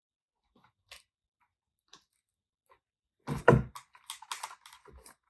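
Hands handling a camera and its case: a few faint isolated clicks, then about three seconds in a busier stretch of knocking, clicking and rustling as the camera is taken out and fiddled with.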